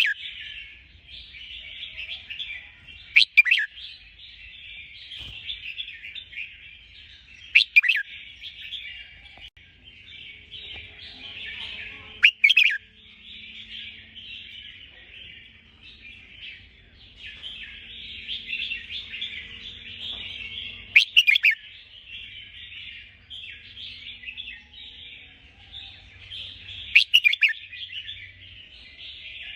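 A group of white-crested birds (the 'ngabok jambul putih') chattering continuously, with loud sharp calls breaking through about every four to six seconds.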